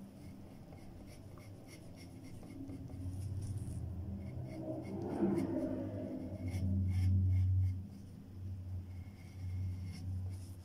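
Pencil scratching on paper in short, repeated strokes. A low hum swells up in the middle and is loudest for about a second and a half around seven seconds in.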